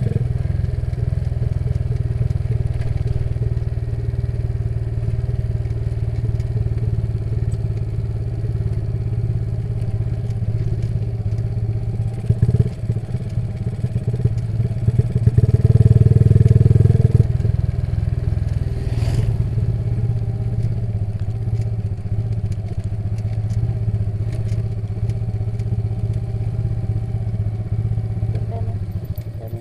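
Motorcycle engine running steadily while riding, swelling louder for a couple of seconds about sixteen seconds in as the throttle opens, then settling back.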